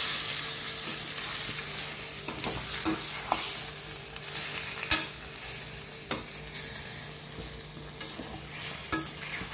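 Chicken pieces sizzling in hot oil in a stainless-steel kadai as a perforated metal spoon stirs them, with scattered clicks and scrapes of the spoon against the steel pan. The sizzle eases off a little as it goes.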